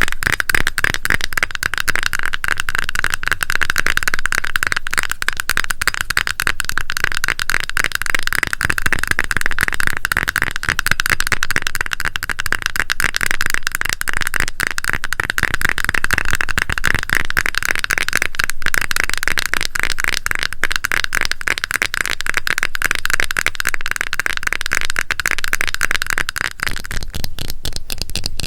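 Rapid, dense crackling taps and scratches on a cosmetic cream container, worked by fingers in a steady unbroken stream that dies away shortly before the end.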